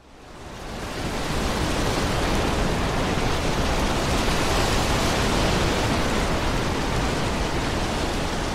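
Steady rain-like hiss of noise that fades in from silence over about a second, holding even throughout, as the opening texture of a recorded pop song's intro.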